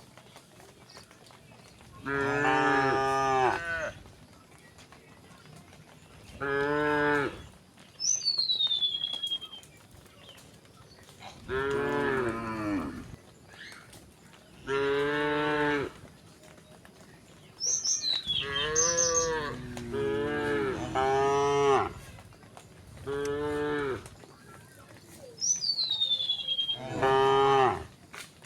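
Cattle mooing again and again, about ten separate moos of one to two seconds each, several of them falling in pitch toward the end.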